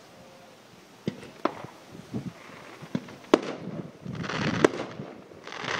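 Aerial fireworks going off: scattered sharp bangs about a second in, around three seconds and again near the end, with stretches of dense crackling between and after them as stars burst and crackle.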